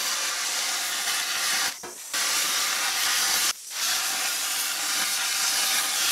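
Plasma cutter cutting through sheet steel with a steady hiss of air and arc. The arc stops briefly about two seconds in and again about a second and a half later, then restarts.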